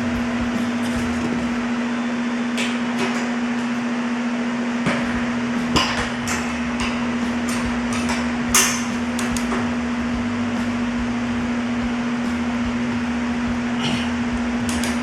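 Scattered sharp metallic clicks and clinks of a click-type torque wrench and socket working the strut bolts and nuts, the loudest about six and eight and a half seconds in. A steady hum runs underneath throughout.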